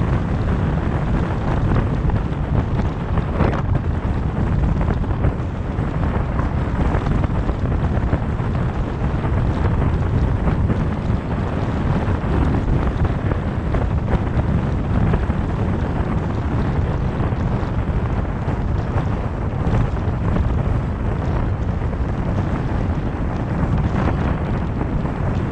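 Steady low rumble of wind and tyre noise from a car driving at speed on a highway, with wind buffeting the microphone.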